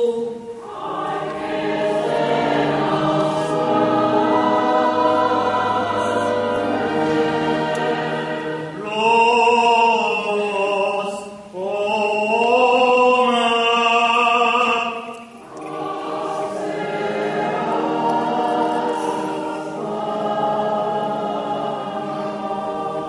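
Church choir singing a slow Armenian liturgical chant in long sustained phrases, swelling louder and brighter in two phrases around the middle.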